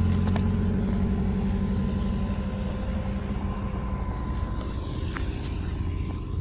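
A small engine running at a steady speed, gradually growing fainter over the first few seconds, with a few light clicks later on.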